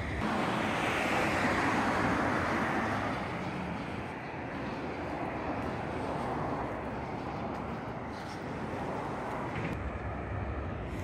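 Road traffic: the noise of a passing vehicle swells in the first couple of seconds and fades by about four seconds in, then a softer swell follows around six seconds in.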